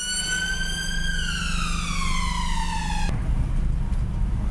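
Emergency-vehicle siren wailing: one long wail that climbs slightly, then falls in pitch and cuts off suddenly about three seconds in. Car engine and road noise run underneath.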